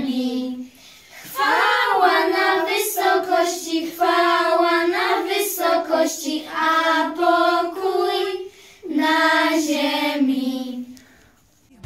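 A group of children's voices singing a Polish Christmas carol together in phrases with short breaths between, with no instrument heard, fading out near the end.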